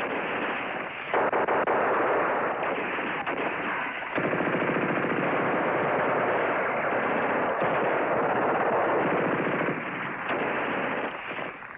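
Machine-gun fire in long, rapid, continuous bursts. It grows louder about a second in and again about four seconds in, then eases a little near the end.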